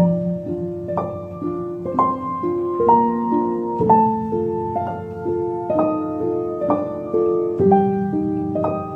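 Gentle instrumental background music: a slow melody of single notes that strike and ring out, with a new note about every half second to a second.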